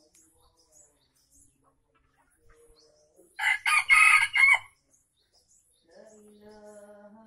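Red junglefowl rooster crowing once about halfway through: a short, clipped crow lasting about a second. Faint steady tones play underneath near the end.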